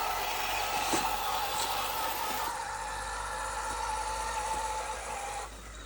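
Electric motor and gearbox of a 1/10-scale RC crawler whining steadily as it drives over rough ground, cutting out about five and a half seconds in.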